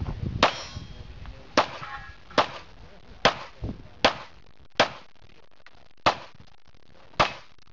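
Pistol fired in a USPSA stage run: eight sharp single shots at an uneven pace of about one a second, with a fainter crack between the fourth and fifth.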